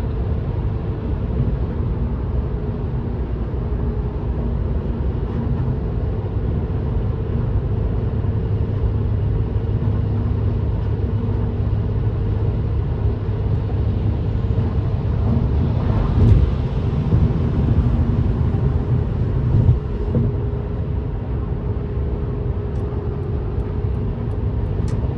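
Steady highway driving noise heard from inside a car: a low engine drone with tyre and road rumble. There is a brief bump about 16 seconds in.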